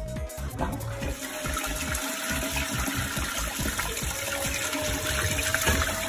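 Toilet flushing: water gushes into the bowl, starting about a second in and rushing steadily around food and a paper takeaway box in the bowl.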